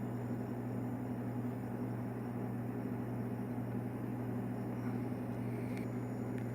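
A steady low machine hum over a soft even hiss, with two faint clicks near the end.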